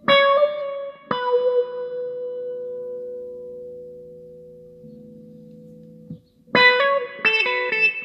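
Electric guitar played through a handmade auto-wah envelope filter pedal. A chord is struck, a second one about a second in rings and slowly fades out, and a quick run of new notes starts near the end.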